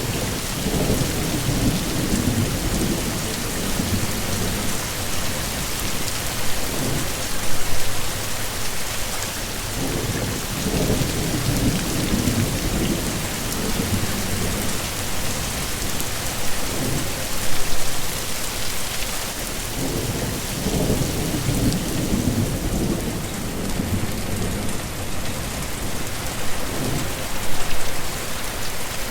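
Heavy rain hissing steadily, with low rolling rumbles of thunder that swell and fade about every ten seconds and a few brief louder surges.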